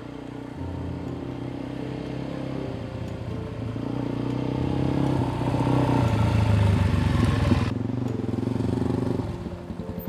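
Suzuki DRZ400 single-cylinder four-stroke dirt bike engine riding along a dirt trail, growing louder as it approaches and passes, then cutting to the engine running slowly with an even pulsing near the end.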